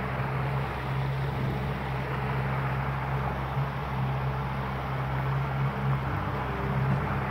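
Boat's outboard motor running steadily, a constant low hum under an even hiss of wind and water.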